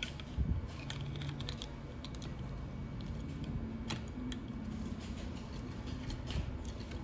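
Small plastic clicks and ticks, scattered and irregular, as the parts of a Transformers Studio Series Shockwave action figure are handled and snapped into place while its hand is transformed in.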